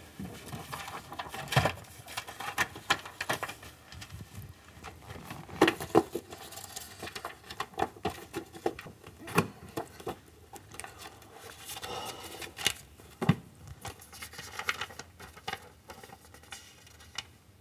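Rummaging through a desk and drawers: small objects moved and set down with scattered knocks and clicks, and paper and packaging rustling.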